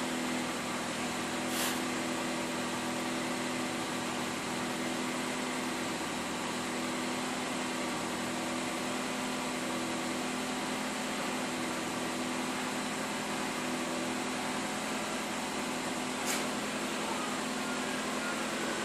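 A steady mechanical hum from a running motor, with two faint short clicks, one about a second and a half in and one near the end.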